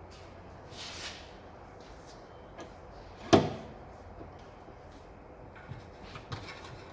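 Handling noise from a handbrake cable being worked into place under a car: a soft scrape about a second in, one sharp knock about three seconds in, then a few light clicks near the end.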